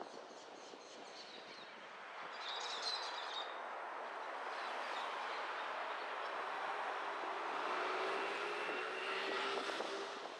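A vehicle passing by: a rush of noise that builds over several seconds and drops near the end, with a faint falling hum, and a few high chirps early on.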